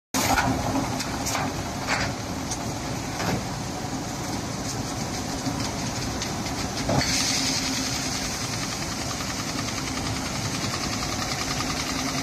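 HT-1000 double-extruder stretch film making machine running: a steady machine noise with a low hum, and a few sharp knocks in the first few seconds. A louder hiss sets in about seven seconds in and carries on.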